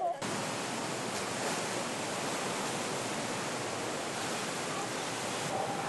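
Fast-flowing floodwater rushing, a steady, even noise with no breaks, starting just after a cut.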